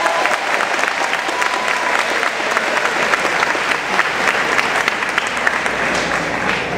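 A large audience clapping steadily, a dense crackle of many hands that begins to thin out near the end.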